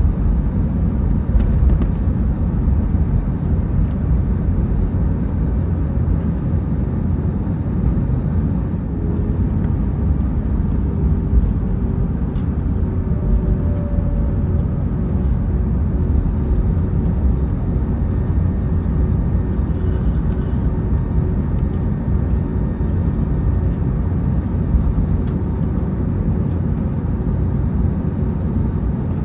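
Airbus A321neo cabin noise on the ground before takeoff: a steady low rumble from the Pratt & Whitney PW1100G geared turbofans at idle and the airframe, with a faint steady hum joining about a third of the way in and a few light ticks.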